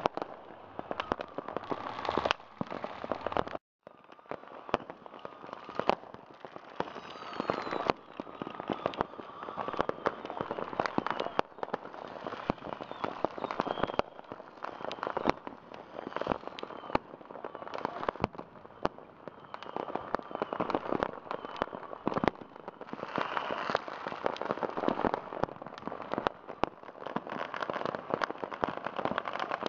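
Dense, continuous popping and crackling of many firecrackers and fireworks going off at once, with a few whistling rockets gliding in pitch. The sound breaks off for a moment a few seconds in.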